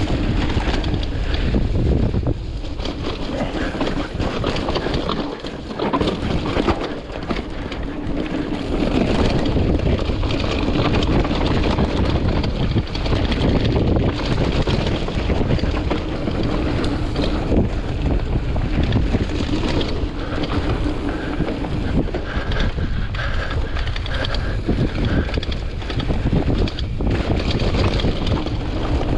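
Rockrider AM100 hardtail mountain bike riding fast down a dirt trail covered in dry leaves: wind rushes over the action-camera microphone, tyres crunch through leaves and dirt, and the frame rattles and knocks over bumps.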